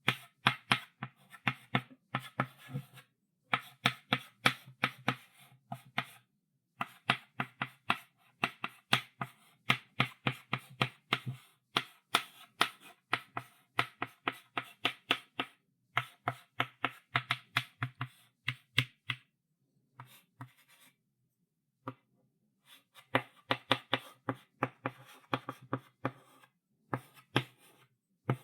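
Chalk writing on a blackboard: quick runs of sharp taps and short scrapes as each stroke is made, with brief pauses between words or lines, including a longer pause of about three seconds a little past the middle.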